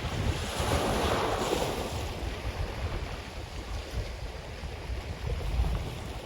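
Ocean waves breaking and washing up a black sand beach: a surge swells about half a second in and recedes over the next few seconds. Sea breeze buffets the microphone with low rumbling gusts, strongest near the end.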